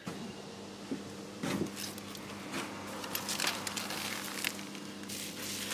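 Steady low electrical hum in a shop, with scattered light knocks and rustles as goods are picked up and handled.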